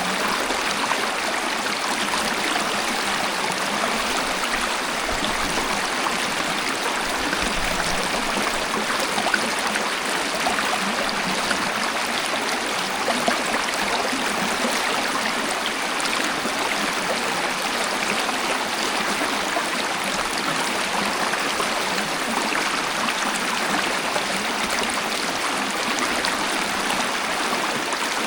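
Waterfall or fast-flowing stream water rushing and splashing in a steady, even wash of noise with no change in level.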